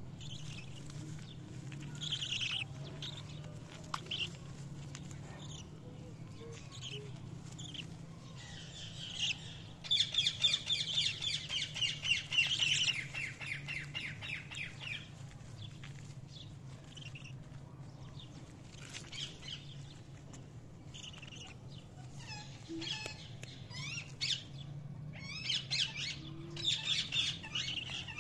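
Budgerigars chirping and warbling in short bouts, with a dense, rapid run of chirps about a third of the way in and more busy chatter near the end. A steady low hum runs underneath.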